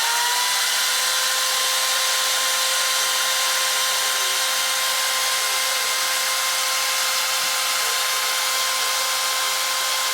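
A 580 W electric drill running with no load. Its motor whine rises as it spins up in the first second, then holds a steady pitch over a rushing hiss.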